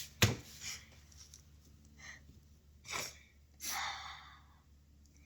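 Sniffing through a stuffy nose from a person with a cold, a short sniff about three seconds in and a longer one soon after. A sharp knock near the start is the loudest sound.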